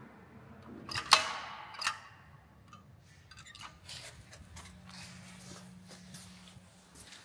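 Elevator call button pressed: a sharp click about a second in, the loudest sound, followed by a smaller click. Faint clicks follow, then a low steady hum for a couple of seconds as the elevator is called.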